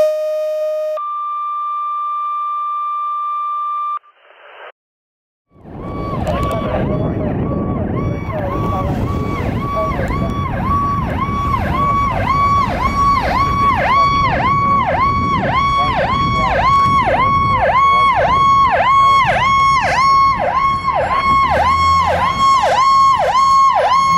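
Two-tone fire dispatch pager alert: a steady lower tone for about a second, then a higher tone for about three seconds. After a short pause, a fire engine's electronic siren on yelp, cycling about twice a second over the rumble of the truck's engine, growing louder as it approaches.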